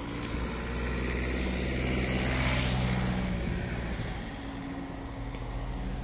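A car driving past close by: engine hum and tyre noise swell to a peak about two and a half seconds in, then fade away.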